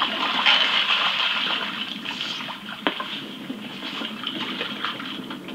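Hooked walleye splashing and thrashing at the water's surface beside a boat, loudest in the first couple of seconds and easing off after.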